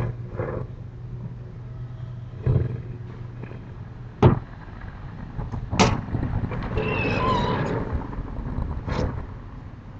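A string of separate sharp bangs and thuds from household doors and fittings, about four of them, the loudest a little after four seconds in, over a low rumble at the start. Between the last two bangs comes a short squeak.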